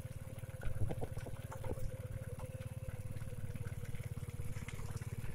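Motorcycle engine running steadily while riding, with a few light knocks about a second in.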